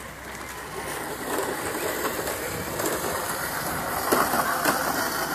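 A vehicle's running noise growing steadily louder as it approaches, with a few sharp clicks near the end.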